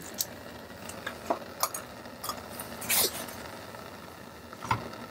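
Soft scattered clicks and light knocks of hands handling items at a lab bench, with a brief louder rustle about three seconds in, over a low steady room hum.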